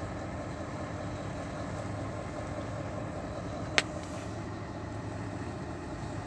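Steady low outdoor rumble, with one sharp click a little past halfway.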